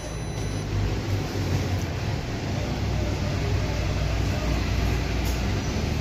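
Whirlpool dishwasher starting a cycle with its flowmeter unplugged: a short control-panel beep right at the start, then a steady low hum of the machine running, growing a little louder over the first couple of seconds.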